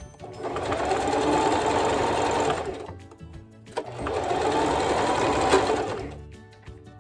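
Electric domestic sewing machine stitching in two runs of about two and a half seconds each, with a short pause between; in each run the motor's pitch rises as it speeds up, holds, and falls as it stops.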